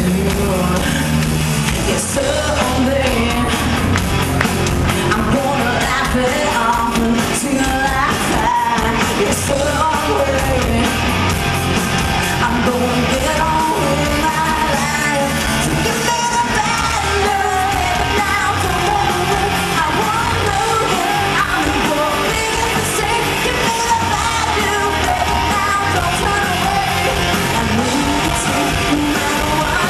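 Live rock band playing: a woman singing lead over electric guitar and drums, heard from among the audience in a large hall.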